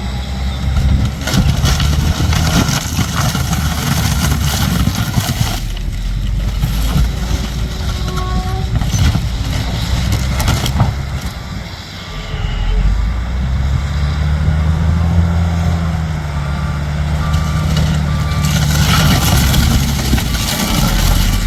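A heavy vehicle's engine running, with a reversing beeper sounding about once a second in the second half.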